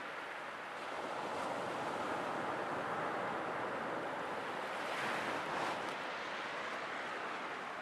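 Sea waves washing in: a steady rush of surf that swells about a second in and builds to its loudest around five seconds.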